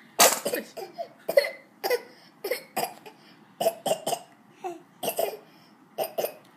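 A man coughing over and over in short sharp bursts, about fifteen in six seconds, the first the loudest.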